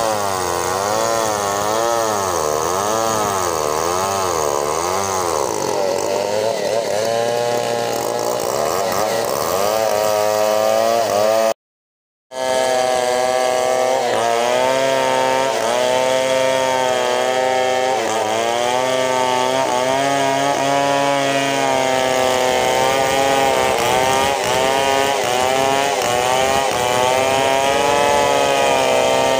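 Large chainsaw running under load, ripping lengthwise through a big bengkirai hardwood log, its engine pitch wavering up and down as the chain bites. The sound cuts out completely for under a second about twelve seconds in.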